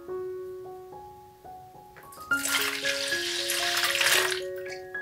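Milk poured from a bottle into a plastic mixing bowl of flour: a splashing pour lasting about two seconds, starting a little before halfway, over piano music.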